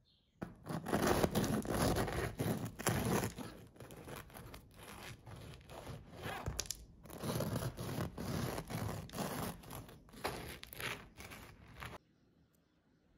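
Serrated bread knife sawing through a baked brioche loaf with a pearl-sugar crust: a long run of sawing strokes with a short pause about seven seconds in, cutting off suddenly near the end.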